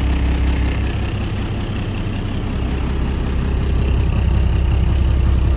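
Cummins 11-litre diesel engine of a 1998 International 9800 cab-over truck idling steadily, heard from inside the cab, a little louder in the second half. By the owners' account it runs with a slight misfire.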